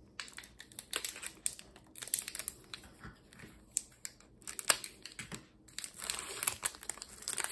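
Foil-lined hockey card pack wrapper being handled and torn open, giving irregular crinkling and crackling.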